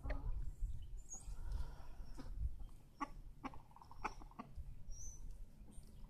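Chickens clucking quietly, with a scatter of short sharp ticks and taps.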